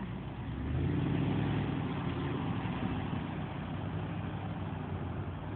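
Car engine and traffic noise heard from inside a car, a low engine rumble that swells about a second in and then settles to a steady drone.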